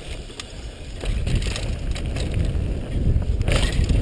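Mountain bike riding down a dirt trail: rumble of wind on the microphone and tyres on dirt, with scattered clicks and rattles from the bike. It grows louder about a second in.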